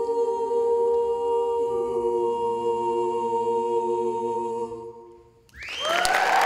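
Mixed-voice a cappella group holding a final sustained chord, the lower voices shifting once under a steady top note, then releasing about five seconds in. After a brief pause, audience applause and whoops begin near the end.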